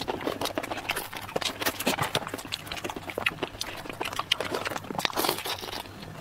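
Close-miked eating sounds of raw whole prawns being bitten and sucked: a dense, irregular run of wet smacks and clicks throughout.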